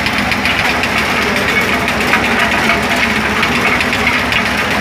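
Engine-driven corn sheller running steadily with a rapid, even knocking, as corn in the husk is fed into it to be stripped of its kernels.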